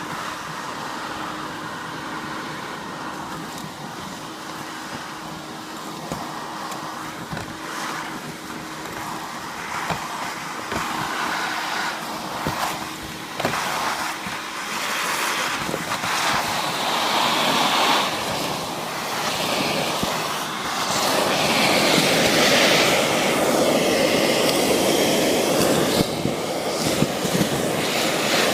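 Gutter vacuum running: a steady rushing noise with scattered clicks and knocks, growing louder and fuller from about two-thirds of the way through.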